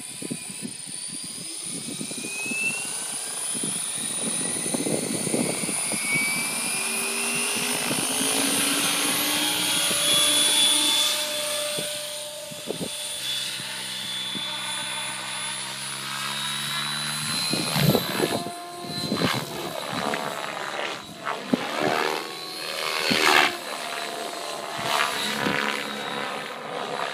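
Thunder Tiger Raptor E720 electric RC helicopter spooling up, its motor and rotor whine rising in pitch over the first several seconds. It then settles into a steady whine and rotor hum as the helicopter lifts off and flies. In the second half the sound swells and dips, broken by irregular thumps of wind on the microphone.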